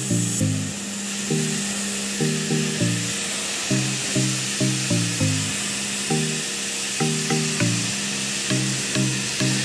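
Pressure washer jet spraying water onto a tractor's engine and front tyre: a steady hiss, under background music with a regular rhythm of low notes.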